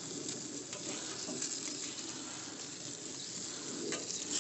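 Hamburger patties and hot dogs sizzling over charcoal on a kettle grill grate: a steady crackling sizzle with fine pops and ticks.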